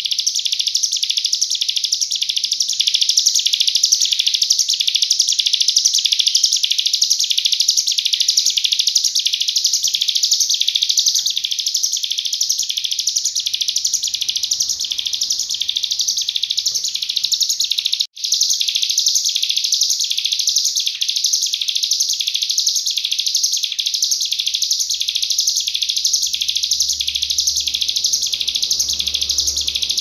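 Cigun (ciblek gunung, a mountain prinia) singing its rapid 'nembak' burst song: a dense stream of high, fast notes repeating in a steady pulse, broken once for a moment about 18 seconds in.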